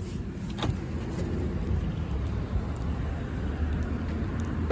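Car engine running with a steady low rumble, heard from inside the cabin, with a sharp click at the start and a knock near the end.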